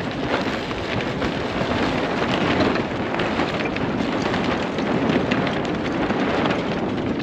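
Wind buffeting the microphone, with the loose mainsail rustling and flapping as it is hoisted up the mast. The noise is steady with fine irregular crackle throughout.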